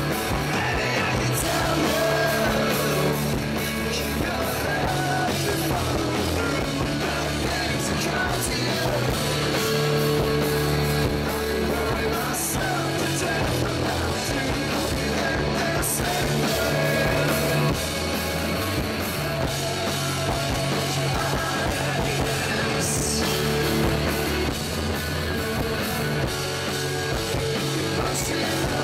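Rock band playing live: electric guitars and bass with a singer's vocals, in poor audio quality from close to the stage.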